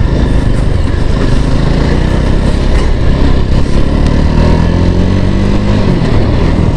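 Jawa 42's single-cylinder engine heard from the saddle, accelerating hard and pulling well, its pitch climbing steadily, then dropping near the end.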